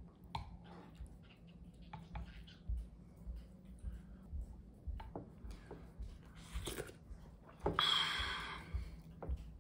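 Close-up eating sounds: irregular chewing with soft crunches and mouth clicks. A louder, noisy crunch or rustle lasts about a second near the end.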